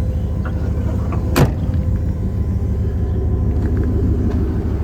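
1999 Chevrolet Suburban's V8 idling steadily while warming up after a long spell of disuse. A single sharp knock about a second and a half in, and a few faint ticks near the end.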